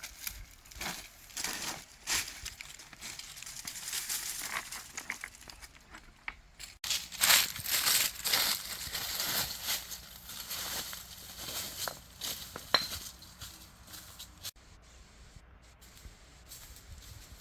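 Irregular crinkling and tearing noises of something being handled, with a few sharp clicks; the busiest stretch is in the middle.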